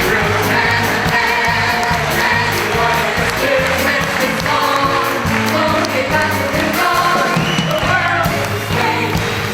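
Live music: singing with band accompaniment and a steady bass line underneath.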